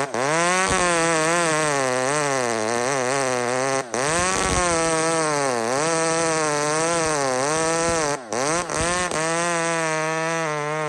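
Large two-stroke chainsaw cutting into a fir stump on a 28-inch bar, its engine pitch dipping and recovering over and over as it works under load. The sound breaks off for an instant about four seconds in and twice around eight seconds.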